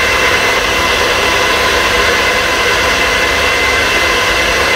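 NutriBullet blender running steadily with a motor whine, held down to blend milk, Oreo biscuits and ice into a milkshake.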